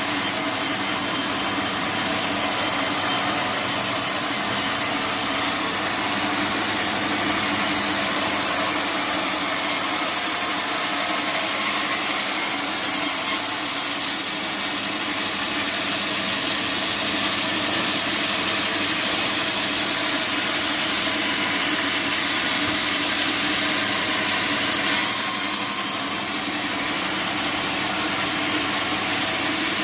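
Sawmill band saw cutting through teak wood, the machine running steadily under the cut. The high hiss of the blade in the wood changes a few times, around 5, 14 and 25 seconds in.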